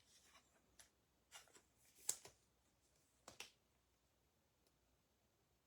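Faint handling of trading cards: four or so short clicks and rustles in the first three and a half seconds, the sharpest about two seconds in, over near silence.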